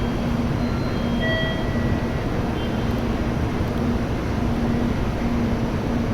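Tokaido Shinkansen train at the platform: a steady rumbling noise with a low hum that comes and goes.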